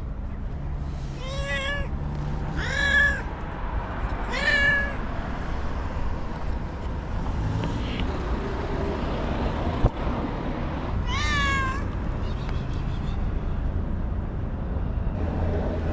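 White stray cat meowing: three meows in quick succession in the first five seconds, then a fourth, higher-pitched meow about eleven seconds in. A steady low street rumble lies underneath, with a single sharp click about ten seconds in.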